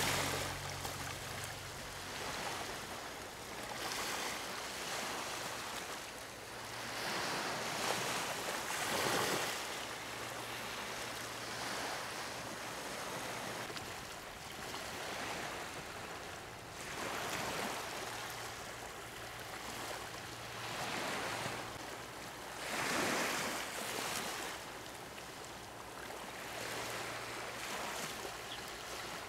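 Small sea waves breaking and washing onto a sandy shore, the surf swelling and fading every few seconds.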